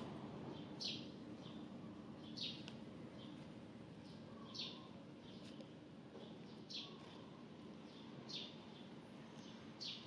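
A bird calling outdoors: a short, high note sliding downward, repeated six times about every one and a half to two seconds, over faint steady background noise.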